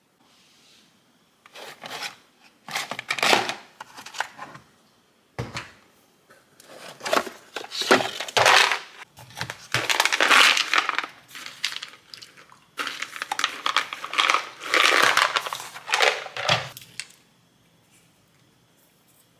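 Plastic supplement bottles being opened and handled: crinkling and rustling plastic in several bursts, with a sharp click about five seconds in.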